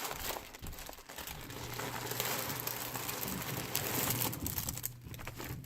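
Parcel packaging crinkling and rustling as it is handled and unpacked, in many short irregular crackles. A steady low hum sits underneath from about a second and a half in.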